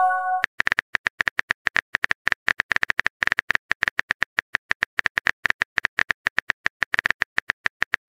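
Simulated phone-keyboard typing: a fast, even run of short key-tap clicks, about ten a second, as a text message is typed out. It opens with a brief pitched chime, the alert for an incoming chat message.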